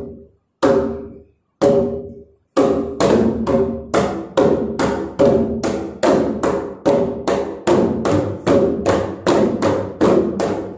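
A group of gendang pampat hand drums struck in unison. First come single beats about a second apart, then from about two and a half seconds in a steady, faster rhythm of about three strokes a second, each stroke ringing briefly.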